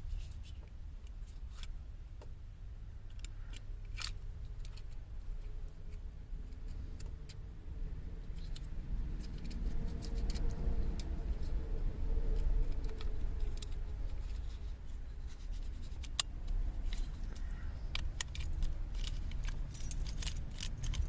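Scattered light clicks and jingles of keys and small plastic parts being handled, over a steady low rumble.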